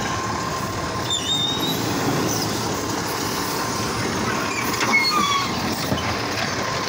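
McNeilus automated side-loader garbage truck lifting a trash cart with its hydraulic arm and tipping it into the hopper. The truck's engine runs under a steady whine, with short metal squeals from the arm and a knock about five seconds in as the cart is dumped.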